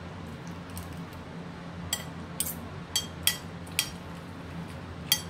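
Several light, ringing clinks on a ceramic dinner plate as food is gathered from it by hand, over a steady low hum from a kitchen range-hood vent.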